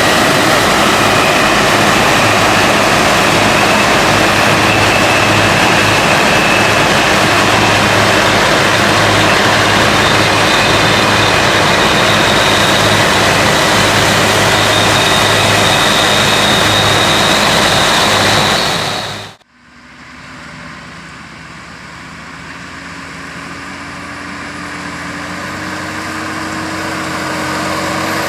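Heavy farm machinery running steadily with engine drone and whine. It cuts off abruptly about two-thirds of the way through, and a quieter engine sound follows that grows gradually louder toward the end.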